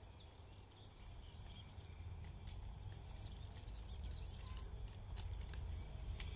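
Footsteps crunching irregularly on the ground, thicker from about two seconds in, over a low steady rumble.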